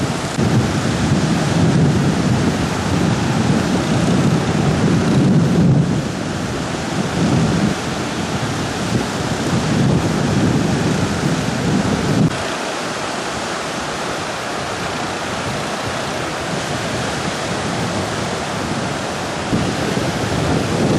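Strong wind buffeting the microphone over surf on the beach: a loud, low rumble that comes in gusts, eases about twelve seconds in and picks up again near the end.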